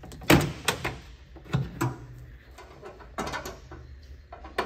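Metal front grille of a classic Mini being handled and pulled off by hand: a series of knocks, clicks and rattles, several of them sharper than the rest.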